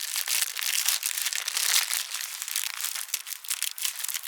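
Packaging wrap crinkling as it is handled, in a dense run of quick, sharp crackles.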